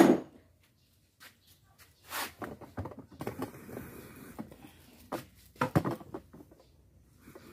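Irregular rustling, scraping and a few light knocks of handling, starting about two seconds in after a quiet stretch.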